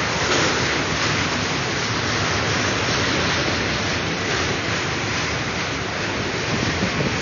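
Freight cars of a BNSF train rolling past, a steady roar of steel wheels on the rails.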